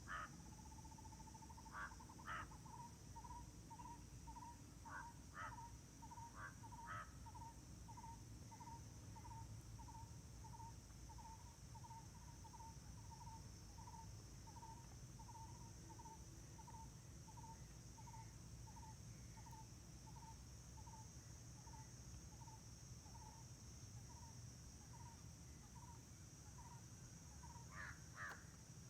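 A bird calling a long series of single, evenly spaced hooting notes, about one and a half a second, which starts as a quick run. A few short, harsher calls come near the start and again near the end, over a steady high buzz.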